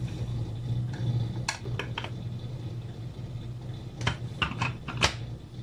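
Steel spoon knocking and scraping against an enamel bowl and a plastic chopper bowl as wet spinach is scooped across, then a run of sharp plastic clicks near the end as the chopper's lid and motor unit are fitted on, over a steady low hum.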